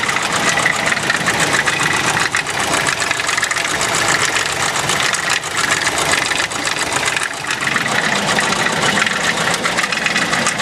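Ford car engine running steadily at idle with a fast, even knocking through it.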